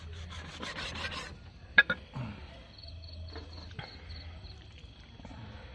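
Cleaver sawing through raw pork belly on a bamboo mat, a rasping scrape for just over a second. A sharp knock follows about two seconds in, then faint insect chirping over a low hum.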